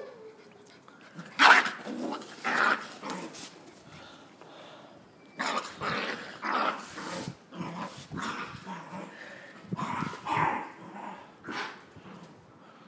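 Young dogs, a black-and-tan Jagdterrier puppy among them, barking and growling in short, sharp bursts, with the loudest yap about a second and a half in.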